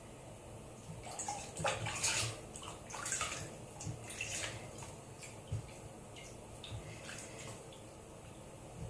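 Water splashing and sloshing in irregular bursts as a kitten is bathed, busiest in the first half.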